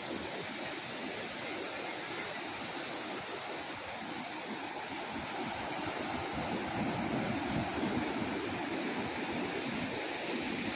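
Ocean surf washing onto the beach: a steady rush of noise that swells a little about six to eight seconds in.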